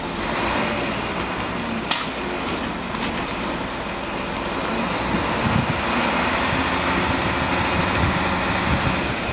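Heavy vehicle engine running steadily during a crane recovery of a stuck truck, with a sharp clank about two seconds in; it grows a little louder in the second half.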